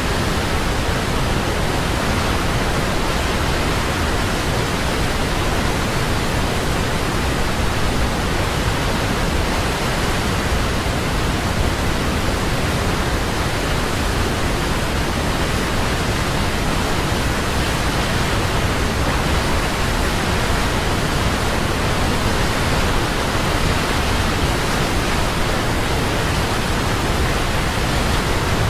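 Large waterfall crashing steadily: a constant, even rush of falling water with no breaks or changes.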